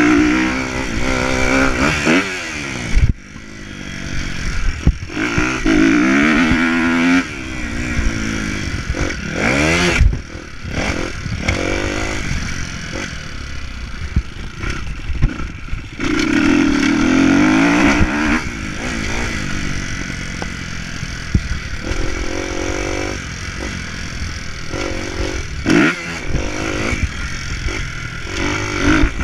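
Motocross bike engine revving hard and falling off again and again as the rider works the throttle and gears around a dirt track, with sudden throttle chops and a couple of thumps about three and ten seconds in.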